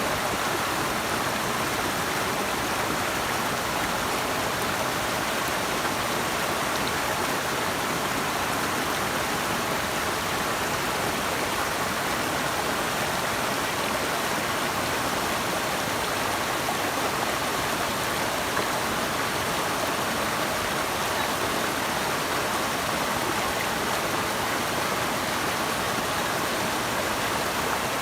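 Running water rushing steadily, a stream or waterfall's continuous hiss without any breaks or separate splashes.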